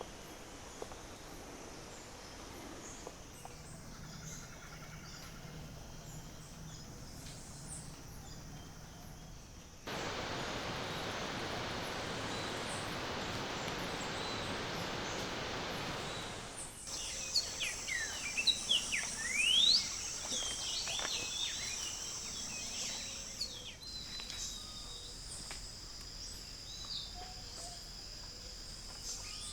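Outdoor wildlife ambience in several cut-together pieces: a steady high insect drone, then about a third of the way in an even rushing noise for several seconds, then birds calling with quick sharp whistles sliding up and down, over the continuing insect drone.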